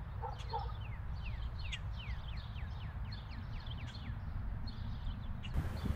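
Birds chirping: a quick run of short falling chirps, about three to four a second, over a steady low outdoor rumble.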